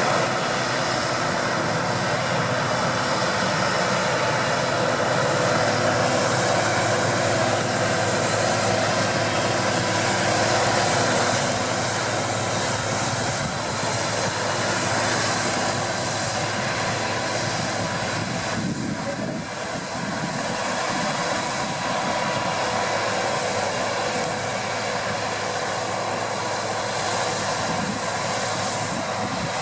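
Deutz-Fahr 6060 combine harvester running steadily while harvesting wheat, engine and threshing machinery together in an even, continuous drone that dips briefly about two-thirds of the way through.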